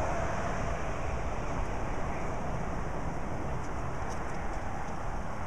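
Steady low outdoor rumble with no distinct event.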